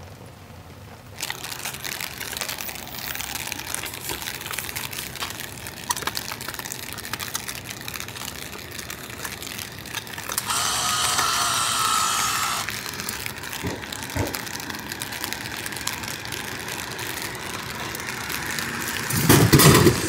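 Steady rain falling, with a crackling patter of drops. About ten seconds in, a vending machine's bill acceptor whirs for about two seconds as it draws in a banknote, and just before the end there is a loud low thump.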